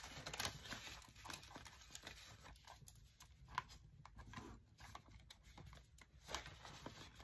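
Faint rustling of paper banknotes and clear plastic binder pockets being handled as the pages of a cash-savings binder are turned, with scattered soft clicks.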